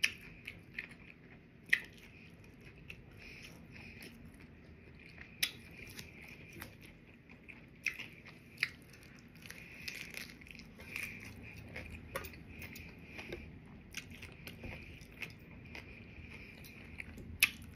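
Close-up chewing and crunching of a crispy fried taco, with sharp crunches scattered irregularly, the loudest about two, five, eight and seventeen seconds in.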